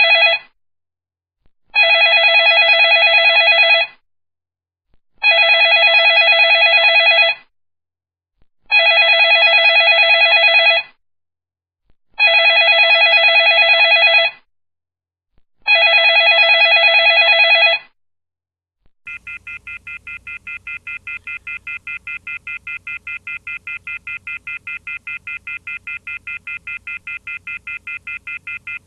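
Telephone ringing in repeated trilled rings, each about two seconds long with a gap of just over a second, five full rings in all. About two-thirds of the way through it gives way to a quieter telephone tone pulsing many times a second, which carries on to the end.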